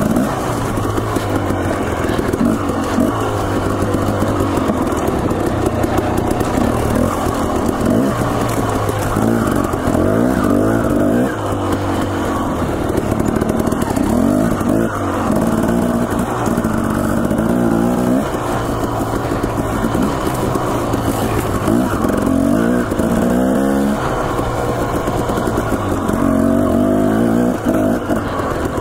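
Dirt bike engine being ridden hard, its pitch rising and falling again and again as the throttle is opened and closed and gears are changed.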